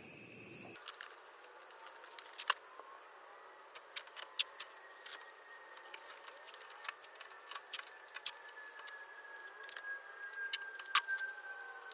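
Quiet background with a steady high-pitched whine, scattered sharp clicks and taps, and a faint tone slowly falling in pitch through the second half.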